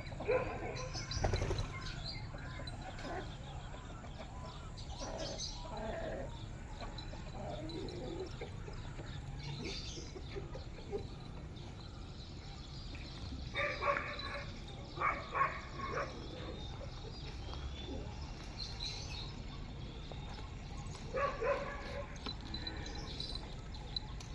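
Scattered short animal calls over a steady low background hum, several in quick succession about halfway through and another few near the end.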